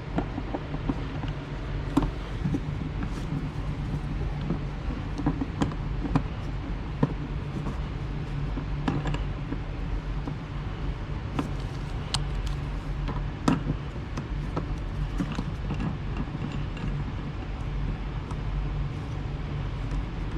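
Scattered light clicks and knocks of seat-belt fittings and interior trim being handled by hand, at irregular moments over a steady low hum.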